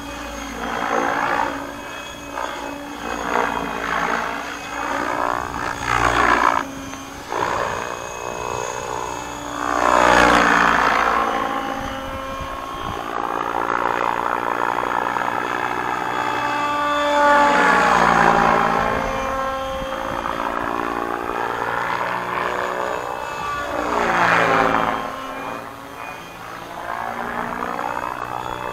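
Align T-Rex 700X electric RC helicopter in 3D flight, its rotor blades and brushless motor running at a low headspeed of about 1700 rpm as a continuous buzzing drone. The drone swells and fades several times as the helicopter swoops nearer and farther away.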